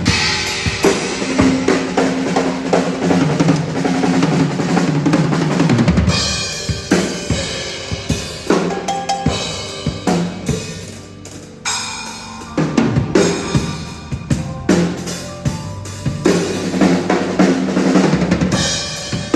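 Drum kit played hard, with bass drum, snare and rimshots in busy grooves and fills, and cymbals ringing over them. The playing eases briefly about eleven seconds in, then picks up again.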